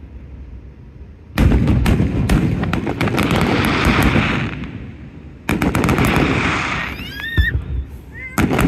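Aerial fireworks bursting: two volleys of sharp bangs, about a second and a half in and again about five and a half seconds in, each followed by a few seconds of dense crackling from the crackle stars.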